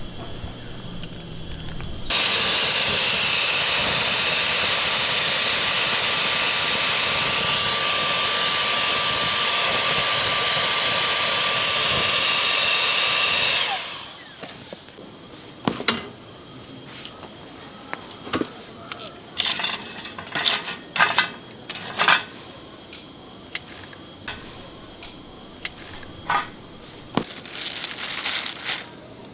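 A small electric motor, such as a blower or power tool, runs steadily with a loud whirring hiss for about eleven seconds. It starts abruptly about two seconds in and winds down quickly. Scattered light clicks and knocks follow.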